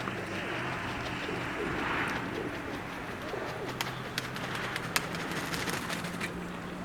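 Domestic pigeons cooing, with a steady rush of wind and scattered sharp clicks.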